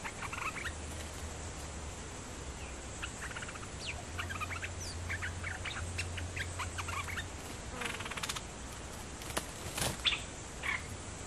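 Bulbuls calling, a caged decoy bird and a wild bird perched near it: runs of short chirps and chattering notes, with a buzzy note and two sharp clicks near the end.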